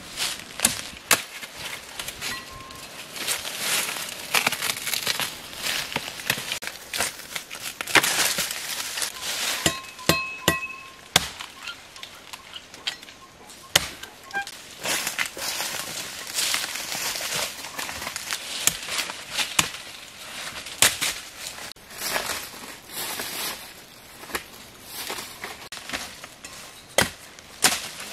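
Machete chopping and hacking at palm stems: irregular sharp chops, some close together, mixed with the crackle and rustle of dry fibrous stems and leaves being pulled and broken.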